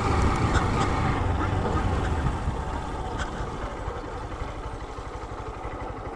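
Honda CG 160 Fan's single-cylinder four-stroke engine running as the motorcycle slows down on a dirt road, the engine and wind noise getting quieter over the first few seconds and settling into a slow, even beat.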